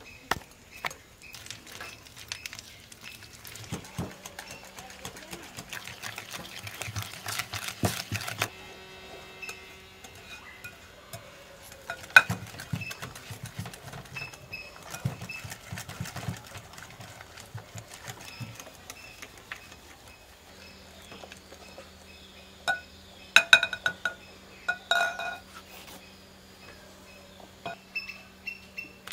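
A metal balloon whisk beating butter and sugar in a glass bowl, its wires clicking and rattling against the glass. A dense run of quick strokes comes first, then slower, scattered strokes with a few sharper, louder clicks.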